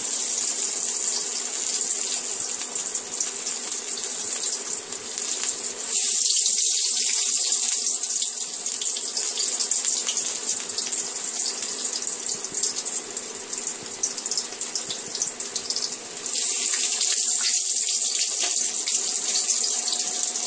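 Flour-dusted brinjal (eggplant) slices sizzling steadily in hot mustard oil. The sizzle jumps louder about six seconds in and again near sixteen seconds, as more slices go into the oil.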